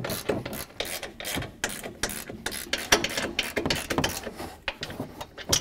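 Ratchet clicking in quick, uneven runs while the 18 mm nuts on a pickup's front strut top mount are backed off.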